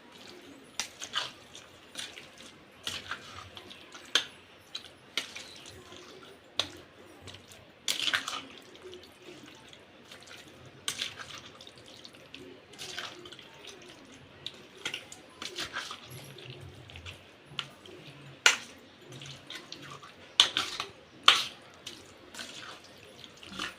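Boneless chicken pieces being mixed into a thick, wet masala-and-curd marinade: irregular squelches and clicks, one every second or so.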